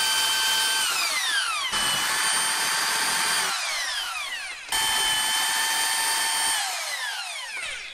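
Bosch electric drill boring into a van's thin sheet-metal roof rib. It runs in three short bursts, and each ends with the motor's whine falling away as the trigger is released and it winds down.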